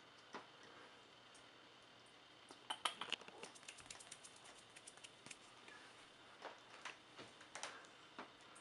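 Young kittens pawing and shuffling in grey granular cat litter: faint, irregular crunching clicks of the granules, busiest about three seconds in.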